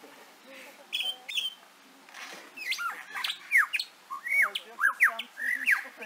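Lyrebird singing its mimicry: a few short chirps about a second in, then a quick run of sharp rising and falling whistles and squawks as it copies a string of other sounds.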